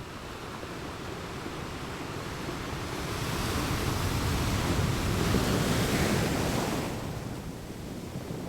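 Ocean surf on a beach: a wave swells up about three seconds in, peaks, and washes away near the end, with wind on the microphone.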